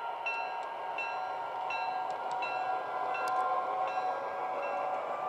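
Electronic locomotive bell of an MTH O-scale GP9 diesel model ringing steadily, nearly three strikes a second, over the model's steady diesel engine drone.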